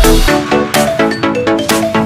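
Electronic dance music with a steady beat and synth chords; the deep bass kicks drop out shortly after the start, leaving the beat and chords.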